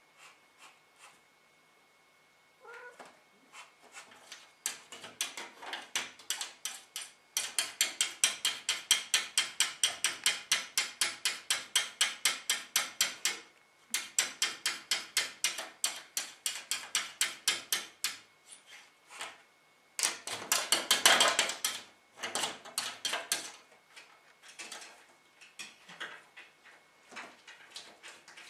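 A domestic cat chattering at prey it is watching: long runs of rapid clicking calls, about eight a second, coming in bouts. A louder, denser burst comes near the end.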